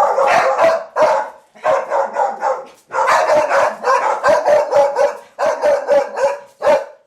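A dog barking over and over in quick runs, several barks a second, at a kitten it is meeting; the handler reads it as curiosity rather than aggression.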